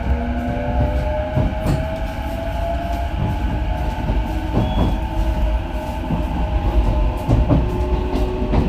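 Nambu Line electric train running, heard from inside the carriage. A motor whine rises slightly in pitch over the first few seconds, then holds steady over a low rumble, with scattered knocks of the wheels over rail joints.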